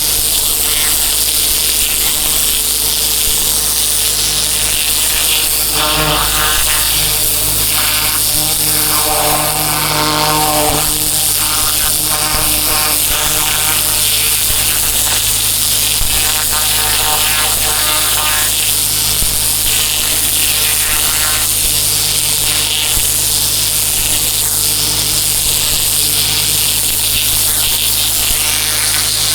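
Pressure washer running: a steady engine drone with a constant high hiss of the water spray.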